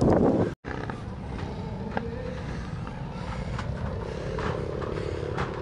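Steady distant hum of car and motorcycle traffic, after a brief dropout about half a second in.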